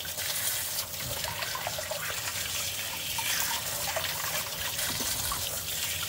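Water heater drain water running steadily from a hose end over a hand and splashing into a sump pit, as the tank is flushed of sediment.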